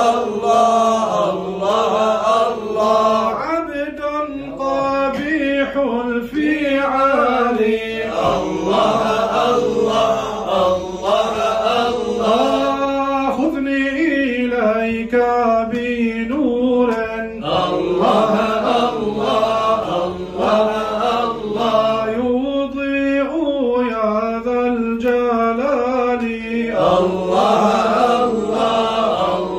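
Men chanting Sufi devotional praise (madih): a lead voice sings long, gliding, ornamented lines into a microphone, with a steady low note held underneath.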